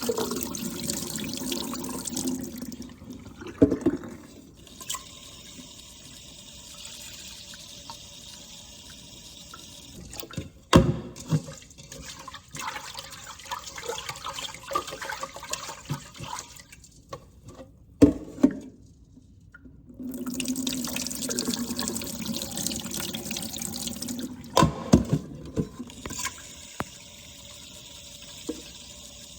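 Kitchen tap running into an Instant Pot inner pot as rice is rinsed, the water running strongly at the start and again about two-thirds through, softer in between. A few sharp knocks of the pot are heard along the way.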